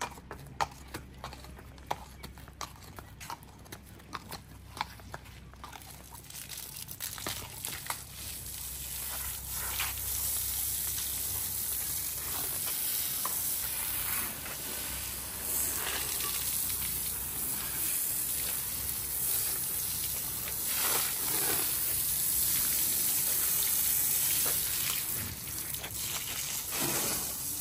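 Horse's hooves clip-clopping on paving stones at a walk. From about six seconds in, a garden hose sprays water over the horse's coat, a steady hiss with splashing on the paving.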